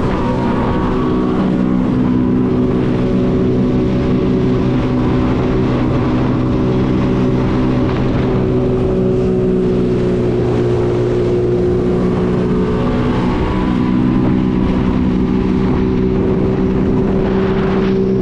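Jet ski engine running steadily under way, its pitch drifting only slightly, with water and wind noise underneath.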